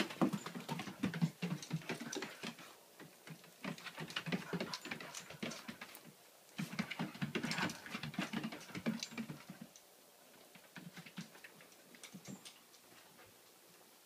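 A beagle's paws and claws pattering and scrabbling on the floor and rug as it spins and dances, in quick irregular taps that thin out to a few faint ones about ten seconds in.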